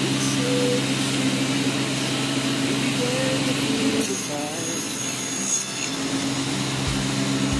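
Tilting-arbor table saw with a 2 hp three-phase motor running with a steady hum while its 10-inch blade saws wood.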